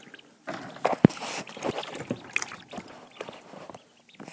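Wire top of a small-animal cage being handled and lifted off: rattling, rustling and clattering, with one sharp knock about a second in.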